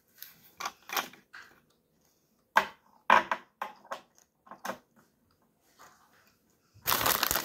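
Plastic candy wrappers and snack packaging being handled, with scattered short crinkles and clicks. Near the end a plastic bag is crinkled loudly and continuously.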